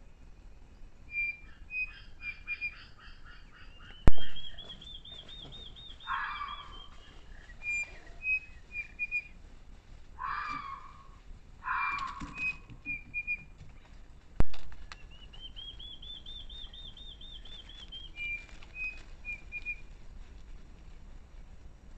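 Forest birds calling: short whistled notes repeated in little runs, a quick trilled series that rises and falls, and three louder, harsher calls around the middle. Two sharp clicks, about 4 and 14 seconds in, are the loudest sounds.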